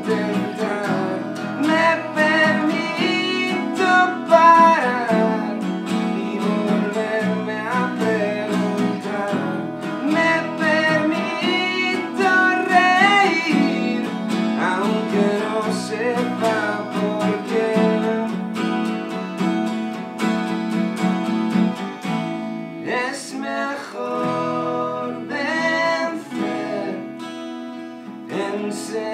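Two acoustic guitars playing a song together, strumming chords without a pause.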